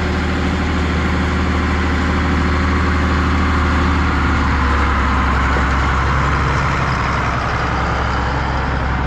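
Tractor's diesel engine running at a steady speed, a constant deep hum.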